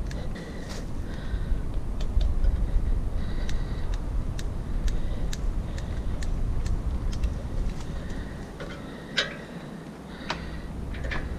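Scattered sharp metal clicks and ticks from hand work with a grease gun on the grease fittings of an old rotary hay tedder, over a low rumble. A few louder clicks come near the end.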